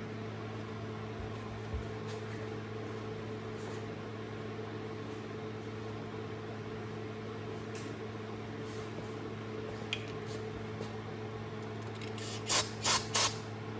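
A steady low hum, then near the end about four short spray hisses in quick succession: cleaner being sprayed onto a grimy ratchet to clean it.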